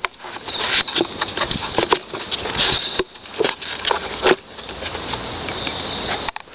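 Close handling noise: irregular clicks, knocks and rustling as hands fit a battery pack and its plug-in connector into the plastic compartment of a model boat.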